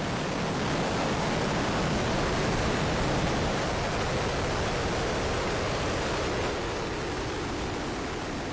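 Ares I-X's solid rocket motor burning in flight seconds after liftoff: a steady, dense rushing roar, slightly louder two to three seconds in and easing a little toward the end.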